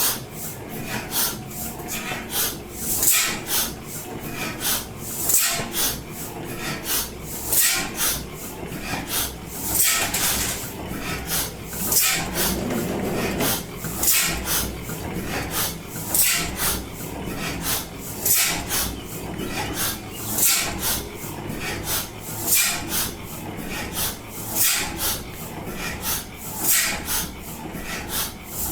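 Slide-valve stationary gas engine running slowly: a sharp beat about every two seconds, with lighter regular strokes in between.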